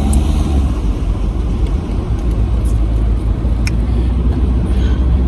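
Car being driven, heard from inside the cabin: a steady low rumble of engine and road noise, with a few faint clicks.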